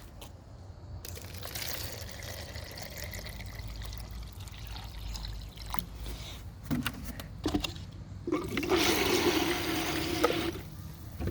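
Water trickling and pouring, with a few short knocks about two-thirds of the way in, then a louder gush of water for about two seconds near the end.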